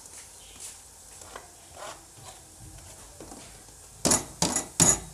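A steel ladle scrapes and clinks softly in a steel cooking pot as chopped spinach is pushed in from a plastic colander. Then come three loud, short knocks as the upended colander is banged on the pot to empty it.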